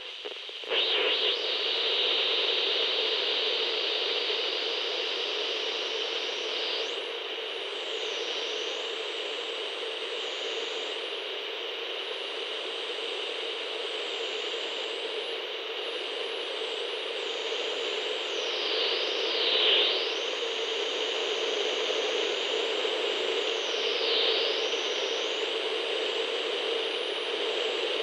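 CB radio static: a steady, thin hiss that starts suddenly about a second in, with faint high whistling tones sliding up and down in pitch over it.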